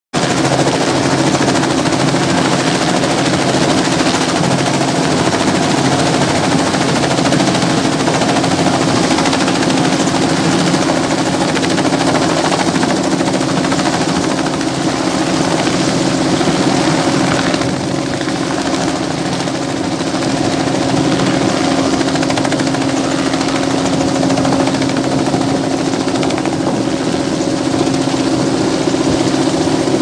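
Robinson R44 helicopter hovering close by: rapid steady chop of its two-bladed main rotor over the hum of its piston engine, a little quieter from about eighteen seconds in as it moves off.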